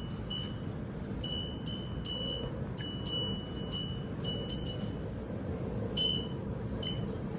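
A wind chime tinkling irregularly, one high bell-like note struck again and again at uneven intervals, with one louder strike about six seconds in. Steady low background noise runs underneath.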